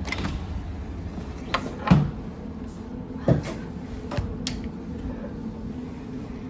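Cabin door being opened and swung shut: a handful of knocks and latch clicks, the loudest about two seconds in, over a steady low hum.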